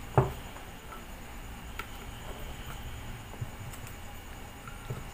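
Small clicks and taps of plastic and metal parts being handled while an angle grinder's motor housing is reassembled by hand. There is one sharper knock just after the start and a few faint ticks and soft taps after it.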